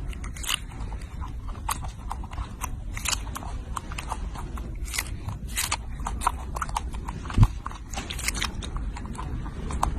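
A monkey biting and chewing a strawberry: irregular, quick smacking clicks of eating, over a steady low rumble, with a single low thump about seven seconds in.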